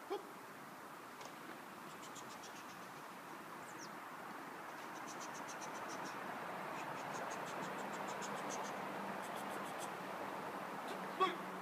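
Insects chirping in short trains of rapid, high-pitched clicks, repeated every second or so over a steady hiss.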